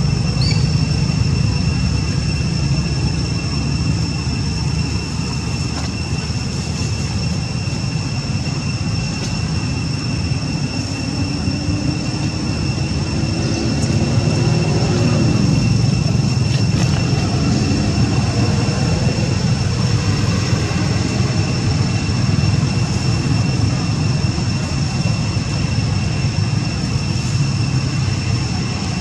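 Steady low engine rumble of distant motor traffic, with one engine passing about halfway through, its pitch rising and then falling, over a constant high-pitched whine.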